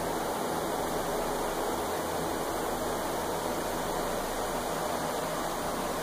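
Steady, even rushing noise of greenhouse ambience, with no distinct events and no change.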